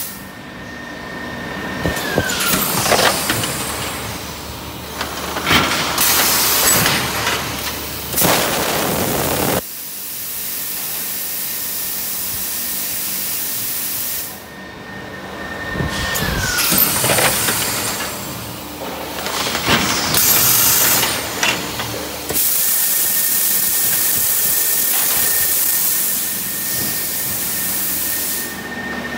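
MX700-1200 semi-automatic vacuum forming machine running through two forming cycles: long bursts of air hiss and sharp clanks of moving mould and frame parts. A steady high whine glides down as each cycle starts, about 2 and 16 seconds in, and a long, even hiss of air fills the last quarter.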